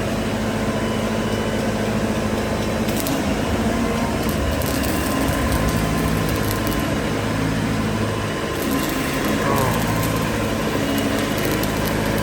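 Weichai WP2.3D40 diesel engine of a welding generator running steadily at its governed speed under test.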